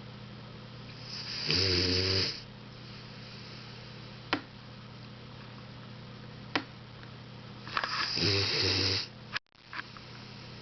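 Old Labrador retriever snoring in her sleep: two loud snores about six seconds apart, each lasting about a second, with a few faint clicks between them.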